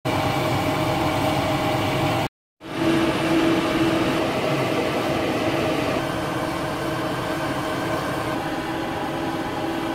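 Steady hum and whine of aircraft running on an airport ramp, with several fixed tones over a constant noise. It drops out for a brief silent cut a little over two seconds in, then carries on unchanged.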